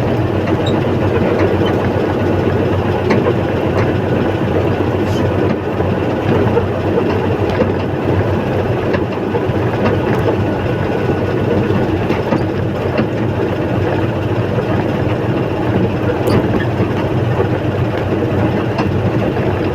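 Backhoe's diesel engine running steadily at close range, a continuous heavy machine drone.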